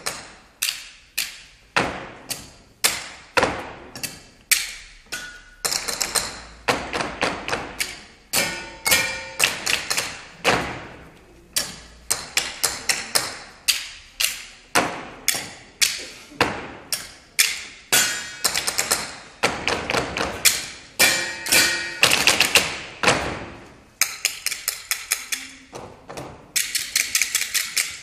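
Table percussion by an ensemble: sharp taps and knocks on a tabletop in a steady rhythmic pattern, a main beat with quicker strokes between, some strikes giving a short ringing tone.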